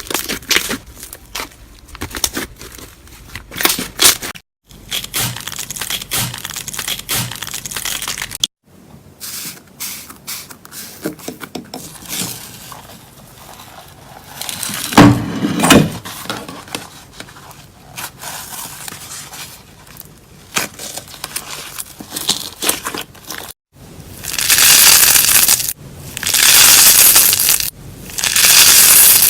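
Slime being squeezed, poked and stretched by hand in several short clips cut one after another, full of small clicks and pops. Near the end come three long, loud crackling squeezes.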